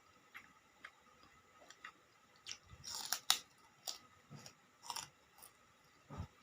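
Close-up eating sounds: chewing and crunching kerupuk crackers with a meal, a string of irregular crisp crunches and wet mouth clicks, the loudest cluster about three seconds in.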